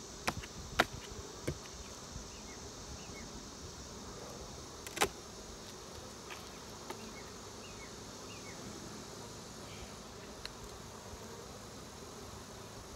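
Honeybees buzzing in a steady hum over an open hive of a very large colony that seems unsettled. A few sharp knocks of wooden hive boxes and the hive tool come in the first second and a half, and one louder knock about five seconds in.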